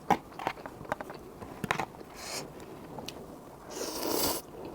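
Close-up eating sounds of cup ramen noodles: wet mouth clicks and chewing, then a longer breathy rush of air about four seconds in.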